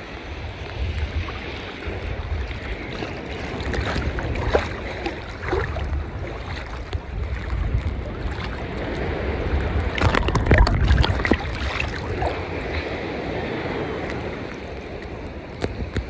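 Small sea waves sloshing and splashing around a microphone held at the water's surface, with gurgling and a low rumble underneath; the splashing is loudest about ten seconds in.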